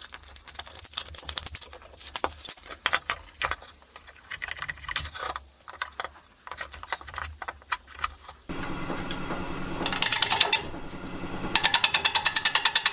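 An old Craftsman chisel scrapes and pries a hot-glued HDPE plastic patch off a wooden bowl, making irregular scrapes and clicks. About eight seconds in, a wood lathe is running and a 3/8" bowl gouge cuts the spinning bowl of burl, resin and aluminum honeycomb. Near the end this becomes rapid, even clicking: an interrupted cut, the tool striking the uneven surface once per turn.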